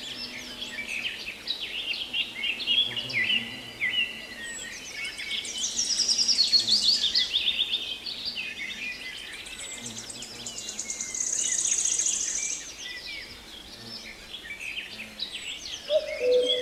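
A mixed chorus of songbirds chirping and singing over one another, with fast, high trills about five seconds and eleven seconds in. A lower call comes in near the end.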